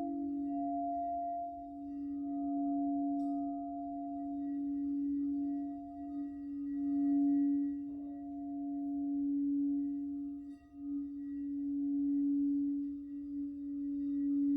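Crystal singing bowls ringing with a steady low hum and faint higher overtones, swelling and fading in slow waves. A second, slightly higher bowl tone dies away at the very start.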